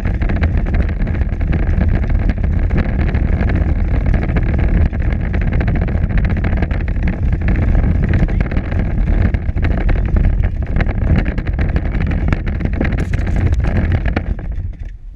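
Power Wheels battery-powered ride-on toy car driving along a concrete sidewalk, its hard plastic wheels rumbling and rattling over the slabs. The sound falls away near the end as the car stops.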